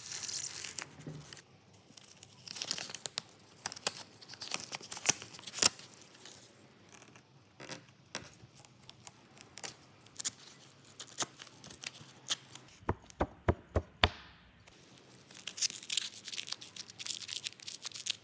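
Hook-and-loop (Velcro) tape being ripped apart and pressed together by hand, in several short runs of ripping noise with quick crackling clicks between.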